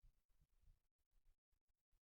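Near silence: faint room tone with low rumbles that cut in and out.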